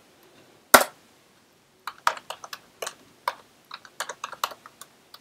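Computer keyboard typing: one louder click about a second in, then a quick, irregular run of keystrokes.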